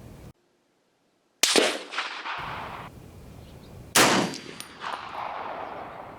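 Two shots from a National Match M1A semi-automatic rifle, about two and a half seconds apart, each a sharp crack followed by echo off the range. They are fouling rounds fired after a sight adjustment.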